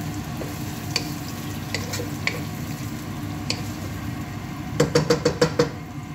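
Chopped onions sizzling in a large nonstick pot as they are stirred with a wooden spoon, with scattered light scrapes and clicks. A little under five seconds in comes a quick run of about six sharp knocks.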